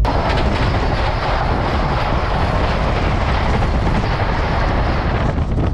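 Vande Bharat Express (Train 18) electric trainset rushing past on the adjacent track, heard from the open doorway of another moving train: a steady, dense roar of wheel, rail and air noise that cuts off near the end.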